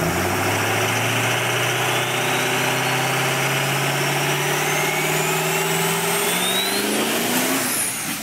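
Engine sound effect revving up, its pitch climbing steadily for about seven seconds with a thin high whistle rising alongside, then a brief high swish near the end.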